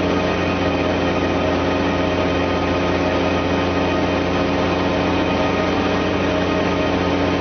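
An engine idling steadily: a constant hum with several steady tones that does not rise or fall.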